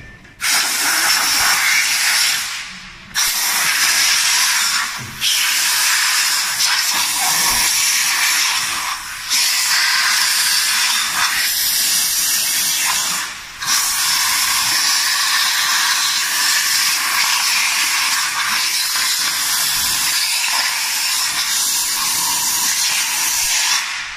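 Compressed-air blow gun hissing loudly as it blows out the cavities of a silicone moulding press's mould, in long bursts with a few short pauses where the trigger is let go.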